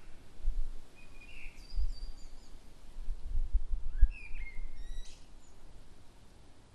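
Birds chirping and calling in short phrases, a couple of calls about a second and a half in and a quick run of calls about four to five seconds in. Low thumps on the microphone are the loudest sounds, over a steady outdoor background hiss.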